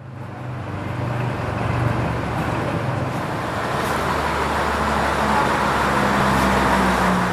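Diesel engine of a Finnish Dm7 'Lättähattu' railcar running steadily at idle, its note stepping up a little in the second half.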